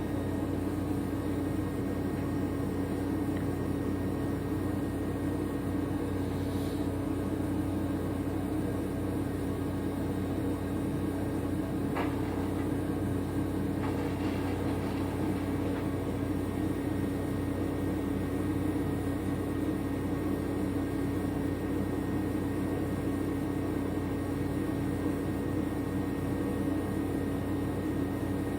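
A steady mechanical hum with a strong low droning tone and a faint click about twelve seconds in.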